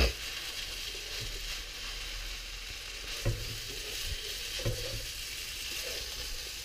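Vermicelli noodles and prawns sizzling in a hot wok while a wooden spatula stirs them, scraping and knocking softly against the pan now and then.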